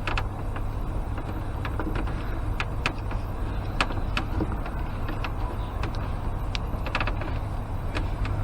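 Scattered light clicks and taps of plastic parts being handled as a washer hose is worked onto the headlamp washer pump, over a steady low rumble.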